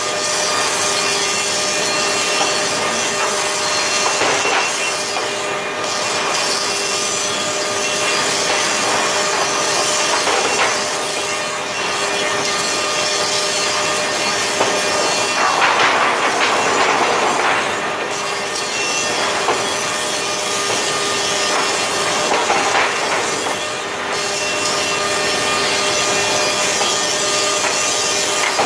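Board infeed line and moulder of a wood-processing plant running: steady loud machine noise with a constant hum, swelling for about two seconds a little past the middle.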